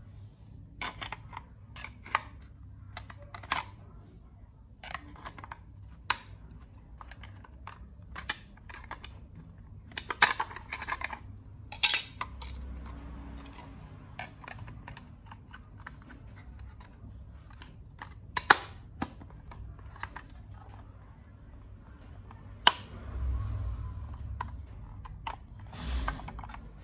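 Irregular clicks and knocks of a plastic RC transmitter being handled, with its AA batteries rattling in the open battery compartment and its battery cover being fitted, including a few sharper snaps.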